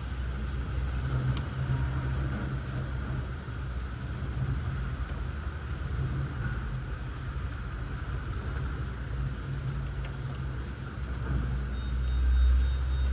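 Steady hiss of a rain shower over a continuous low rumble, which swells briefly near the end.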